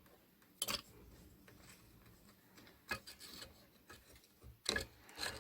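Faint handling sounds: a few short clicks and light rubbing as a Y1 capacitor's leads are worked into the holes of a circuit board.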